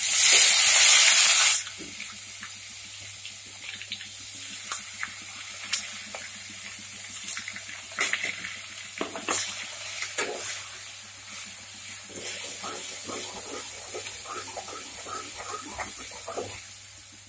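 Chopped onions tipped into hot oil in a kadhai: a loud burst of sizzling for about a second and a half, then a steady, quieter sizzle as they fry. A spoon scrapes and clicks against the pan as the onions are stirred.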